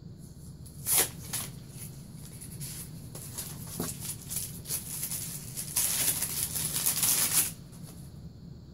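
Hands rummaging through tissue paper and foam packing peanuts in a cardboard box: a sharp rustle about a second in, scattered rustling, then a dense rustle lasting about two seconds near the end.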